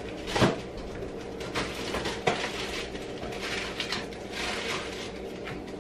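Rummaging in an open refrigerator: scattered knocks and clatters of containers and door-shelf items being moved, over a steady background hiss.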